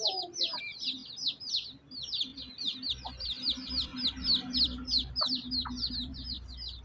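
Baby chicks peeping rapidly and without a break, each peep a short high chirp falling in pitch, several a second.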